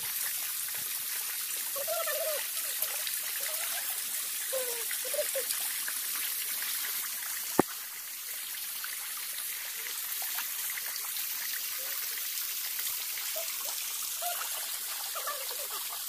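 Water trickling down a rock face and running in a shallow stream, a steady hiss. A single sharp click about halfway through.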